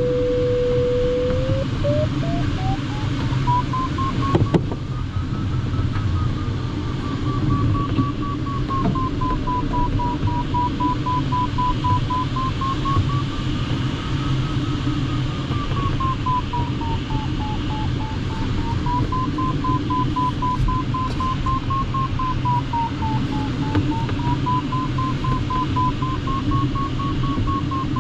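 Glider's audio variometer tone over steady airflow noise in the cockpit. It holds a low, steady tone at first, then rises in pitch about two seconds in and turns to quick beeps that wander up and down in pitch as the glider meets rising air.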